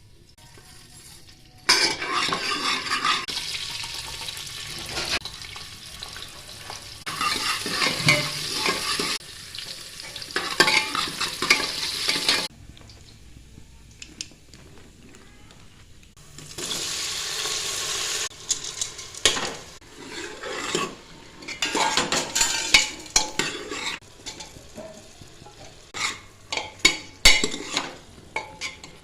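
Food sizzling in hot oil in a cooking pan while it is stirred with a spoon, with sharp clinks and scrapes of the spoon against the pan. The sizzle stops and starts abruptly several times and drops away for a few seconds about midway.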